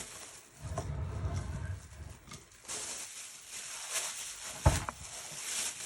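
Aerosol spray-paint can hissing in short bursts, after a low rumble at the start, with one sharp click near the end.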